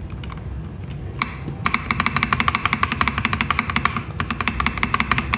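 Mechanical keyboard key on a stabilizer fitted with an Akko Jelly Sponge tactile switch (PC housing), pressed repeatedly. A few separate clicks come first, then fast, continuous tapping from just under two seconds in. The key has a ringing, hollow tone.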